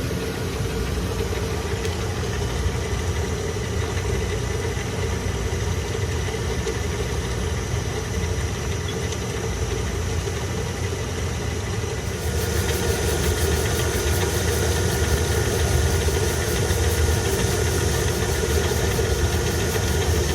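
Steady mechanical hum with a low rumble from running machinery. About twelve seconds in it grows louder and a high hiss with a fast, even pulsing joins it.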